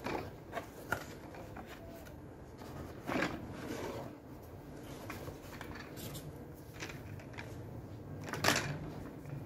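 A cardboard box being opened by hand: its flaps rustle and scrape, then a wire spice rack holding plastic jars is lifted out and set down, with scattered knocks and rustles and a louder rustle near the end.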